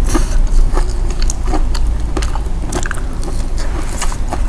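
Close-miked chewing and biting of fried snack balls: irregular small crunches and wet mouth clicks.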